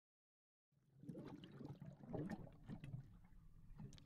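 Water sloshing and splashing with small drips, starting suddenly about a second in after total silence.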